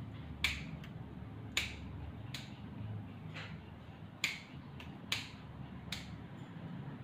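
Small grooming scissors snipping through the fur around a Shih Tzu's muzzle: about six sharp, crisp snips at uneven intervals, with a couple of fainter ones between them.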